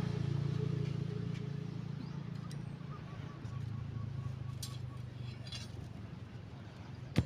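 A low, steady engine hum slowly fading away, with a few light clicks and one sharp click near the end.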